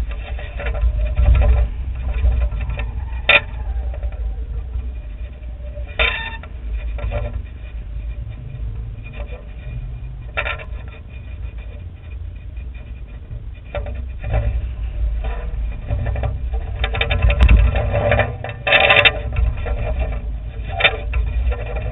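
Wind rumbling on the microphone of an airborne camera, with scattered sharp clicks and short rattles, the loudest cluster about 17 to 19 seconds in.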